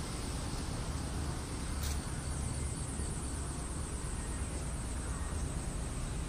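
Steady outdoor background noise: a low rumble under an even hiss, with a single click about two seconds in.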